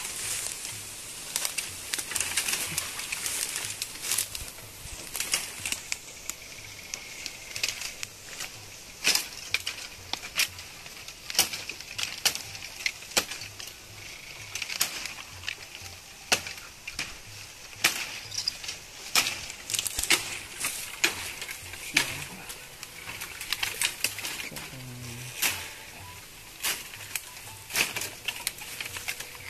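Dry bamboo branches and leaves rustling, with frequent irregular sharp snaps and cracks, as a long bamboo pole is pulled and worked loose through a tangled bamboo thicket.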